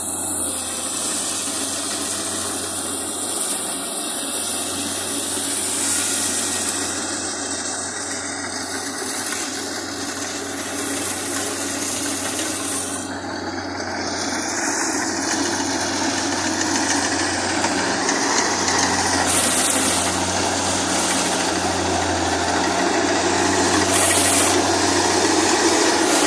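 Kubota DC68G combine harvester running steadily at work harvesting rice: diesel engine and threshing machinery with a constant low hum under a broad mechanical din, growing gradually louder towards the end.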